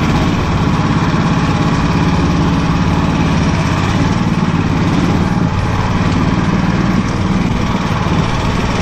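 Engine of an open-frame off-road vehicle running steadily while it drives, heard loud and close from aboard.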